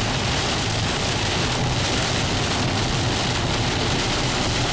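Steady noise inside a moving car: tyre and wind rush over a low engine drone.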